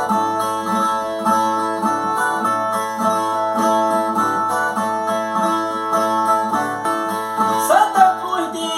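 Brazilian ten-string viola playing a strummed and plucked instrumental interlude between sung repente verses.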